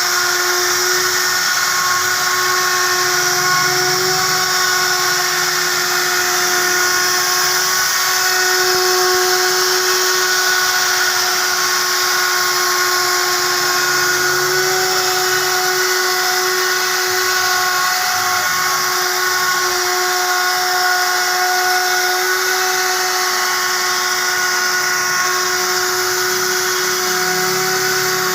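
Woodworking router machine running steadily, its spindle giving a high whine with a constant hiss of cutting noise above it.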